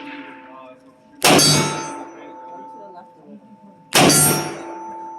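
Two gunshots about three seconds apart, each followed by the clear, lingering ring of a struck steel target.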